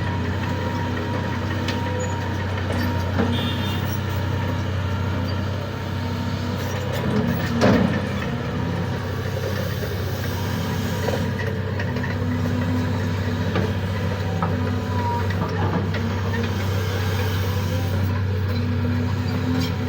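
Excavator's diesel engine running steadily, with a louder scrape or clank about halfway through.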